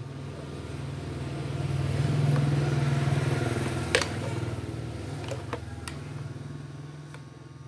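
A motor vehicle engine passing by, growing louder to a peak in the middle and then fading away. A sharp click comes about four seconds in.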